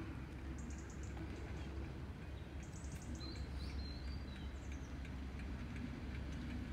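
Distant Class 37 diesel locomotive's English Electric V12 engine running light as it approaches slowly, a low steady rumble, with a few bird chirps about three seconds in.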